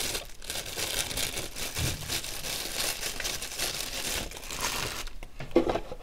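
Crinkling of packaging being handled, a continuous crackle that eases off near the end, followed by a couple of light knocks.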